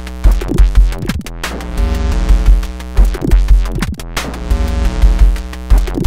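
Eurorack modular synthesizer patch playing a looping electronic drum-and-synth pattern. Deep bass hits and drum strikes with falling pitch sweeps sound over sustained chord tones, and the loop repeats about every two and a half to three seconds.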